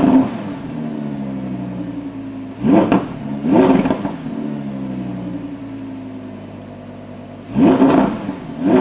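Audi R8's V10 engine on its stock factory exhaust, idling and blipped with short throttle revs. There is one rev right at the start, two about three seconds in and two more near the end. Each one rises sharply and drops straight back to idle.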